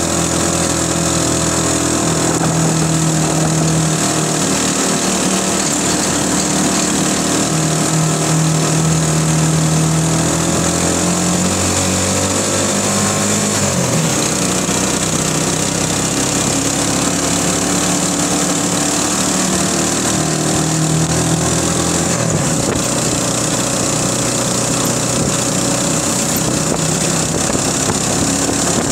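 Small motorcycle engine running at road speed, its pitch dipping and changing about halfway through and again near the three-quarter mark, over a steady hiss.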